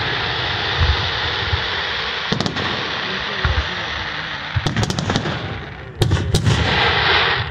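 Fireworks display: aerial shells bursting in clusters of sharp booms about two, five and six seconds in, over a continuous hiss and crackle.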